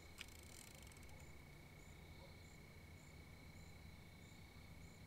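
Near silence with faint night insects chirping: short high chirps repeating about one and a half times a second over a steady thin high tone. A small click sounds just after the start.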